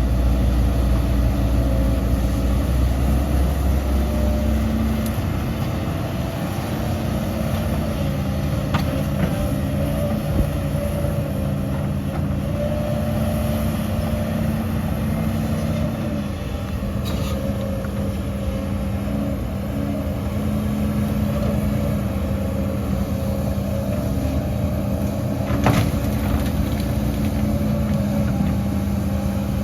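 Heavy diesel earthmoving machinery running steadily, its engine holding a nearly constant pitch, with a few sharp metallic knocks.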